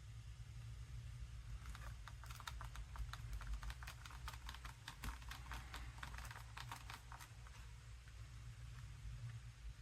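Fosmon mini Bluetooth keyboard's small keys being typed on in a quick run of taps, starting about two seconds in and stopping about seven seconds in, over a steady low hum.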